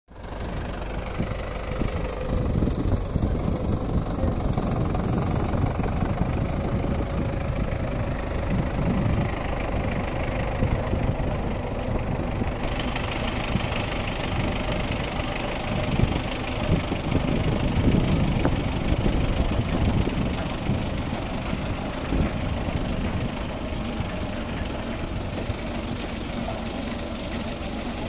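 Belarus 510 tractor's diesel engine running steadily while it pulls a potato digger through the field, together with the rattle of the digger's elevator chain shaking out soil and potatoes. A higher, hissing clatter grows louder about halfway through.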